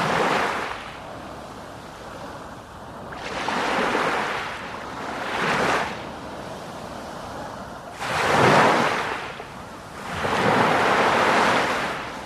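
Sea waves breaking and washing ashore in a steady hiss, swelling five times as each wave comes in. The loudest wave is about two-thirds of the way through.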